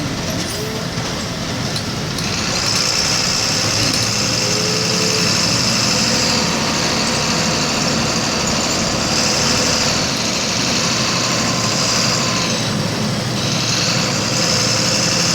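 Volkswagen 17.230 EOD bus engine running steadily, with a high whine that comes in about two seconds in and drops out and returns a few times.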